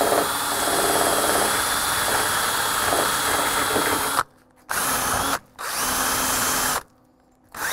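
Cordless drill spinning a small wire wheel brush against rusty sheet steel in a car's rear window channel, scrubbing off rust, with a high whine over the scraping. It runs about four seconds, stops, then comes back in two short bursts.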